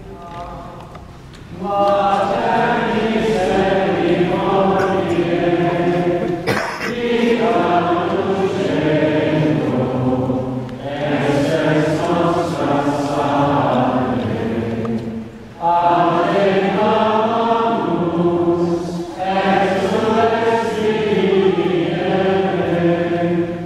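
Choir chanting a slow liturgical chant in a large church, long sung phrases separated by brief pauses for breath. A single short click about six seconds in.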